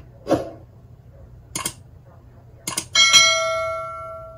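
Subscribe-animation sound effects: a few short clicks and swishes, then a single bright notification-bell ding about three seconds in that rings on and fades away.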